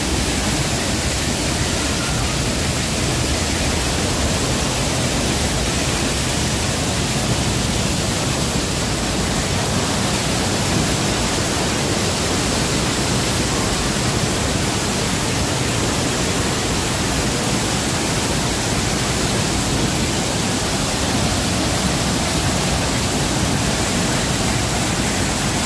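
Waterfall: a loud, steady rush of falling water, an even hiss with no breaks or changes.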